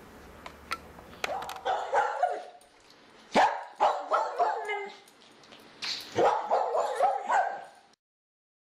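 A dog barking in three quick runs of barks, after a few sharp clicks. The barking cuts off abruptly near the end.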